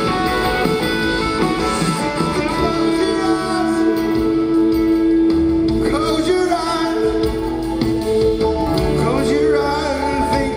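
Live rock band playing electric guitars and drums in an arena. A lead male voice starts singing about six seconds in.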